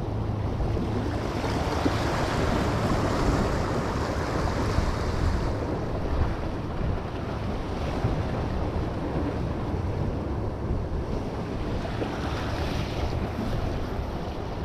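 Ocean waves washing against the jetty's boulders, swelling about a second in and again near the end, with wind buffeting the microphone.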